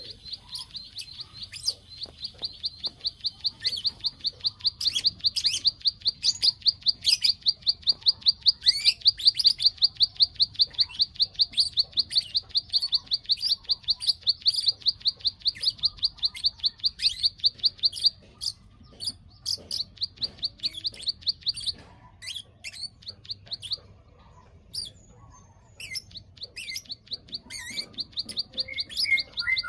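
Bar-winged prinia (ciblek) giving its 'klik-klik' call: a long, fast, even run of high clicking notes with sharper chirps mixed in. Past the middle the run breaks up and pauses briefly, then resumes near the end.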